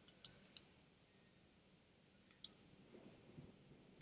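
Faint clicks of a computer mouse selecting objects: three quick clicks near the start and a pair a little past two seconds in.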